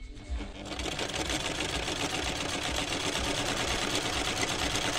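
Chaika 144A sewing machine running at a steady speed, sewing a decorative stitch pattern on fabric. It is an even, fast needle-and-mechanism clatter over a low motor hum, starting about half a second in.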